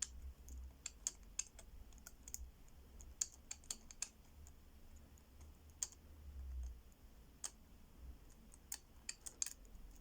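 Number wheels of an Abus 158CS/65 combination padlock clicking irregularly as they are turned one position at a time. The shackle is held under tension while each wheel is felt for its loose spot, to decode a lost combination.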